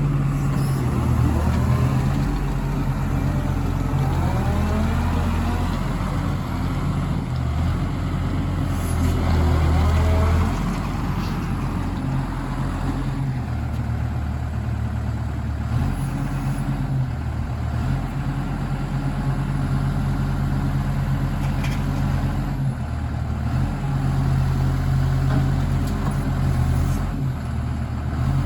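Diesel engine of a 2007 New Holland MH3.6 wheeled excavator running, its note shifting with load. A wavering whine rises and falls over the first ten seconds or so.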